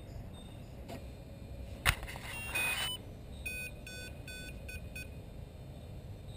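A sharp snap as a 14S battery connector is plugged into a Kontronik Kosmik 160 electric helicopter speed controller, then the controller's start-up tones and about five short, evenly spaced beeps, which signal that the system has powered up and initialised.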